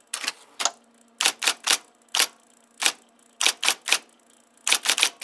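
Typewriter keystrokes: sharp single clacks in uneven clusters of two to four, about sixteen in all, with short pauses between clusters.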